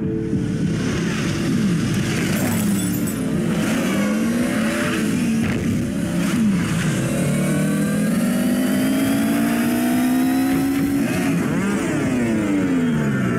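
Synthesized futuristic vehicle engines, several at once, whining and gliding up and down in pitch as they race. A long rising whine builds through the middle, then a quick series of falling pitches near the end as they sweep past.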